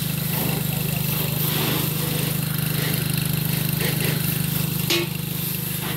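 An engine idling steadily, a low even hum throughout, with a brief sharp knock about five seconds in.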